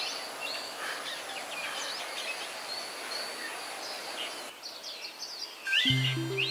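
Birds chirping again and again over a steady background hiss, with a thin steady high tone that stops about two-thirds of the way in. Background music with low bass notes comes in near the end.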